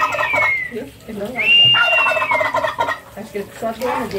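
Domestic turkey tom gobbling twice: a rattling gobble that ends about a second in, then a second full gobble starting about a second and a half in, each opening with a high note.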